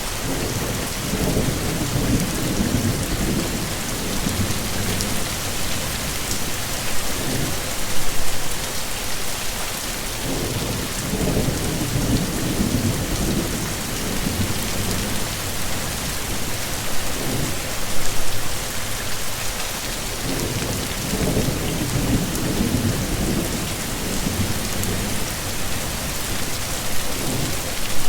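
Heavy rain falling steadily, with thunder rumbling low in three long rolling swells: at the start, about ten seconds in, and about twenty seconds in.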